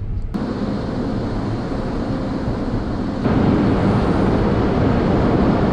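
Automatic car wash machinery running around the car, heard from inside the cabin: a steady rushing noise that starts suddenly and gets louder about three seconds in.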